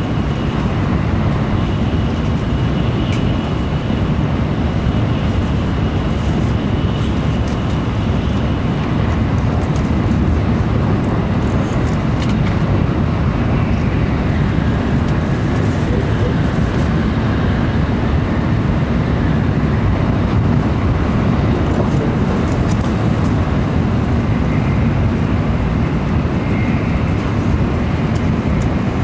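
Steady running noise inside a Shinkansen bullet train's passenger cabin at high speed: an even rumble of wheels on rail and rushing air, with a faint high whine for the first several seconds.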